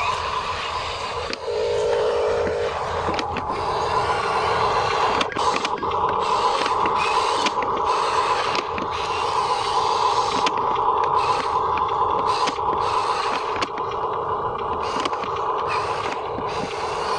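Huina RC dump truck's small electric motors whirring steadily as it drives and works its tipper bed, with scattered clicks and scrapes of dirt and grit under the wheels and in the bed.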